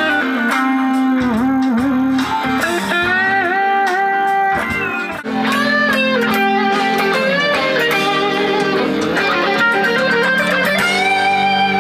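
Ibanez electric guitar playing a lead line full of string bends and vibrato, notes sliding up and falling back, with long held notes near the end.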